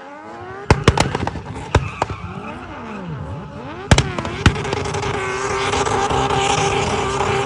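Car engine coming off the throttle with a series of sharp exhaust pops and backfires in clusters, while its revs swing up and down. About five seconds in, it settles into a steadier run that grows louder.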